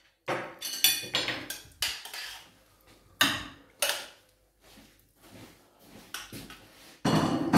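A spoon scraping and knocking against a pan and plates as freshly made risotto is dished out: a run of short clinks and scrapes, with a longer, louder scrape near the end.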